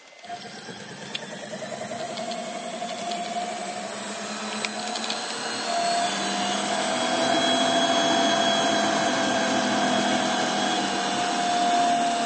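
Davey DynaDrive variable-speed booster pump starting up and speeding up as a shower is opened, growing louder over the first six seconds or so and then running steadily with a high whine. It is ramping to hold constant pressure under the new demand.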